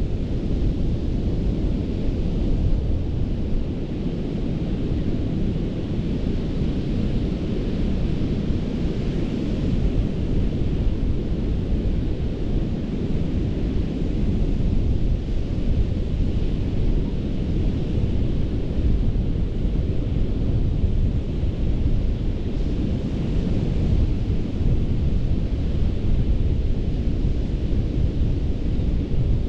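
Ocean surf breaking on a sandy beach: a steady low rumble, with the hiss of the waves swelling and fading every several seconds.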